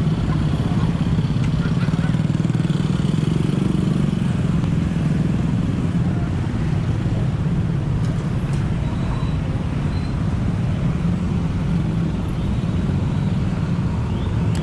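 Steady motor traffic on a city street: vehicle engines running close by in a continuous low rumble.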